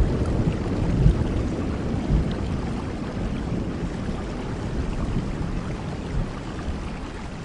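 A rolling thunder rumble slowly dying away under a steady hiss of rain.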